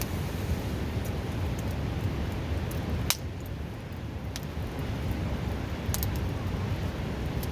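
Wood fire crackling with a few sharp pops, the loudest about three seconds in, over the steady rush of a river.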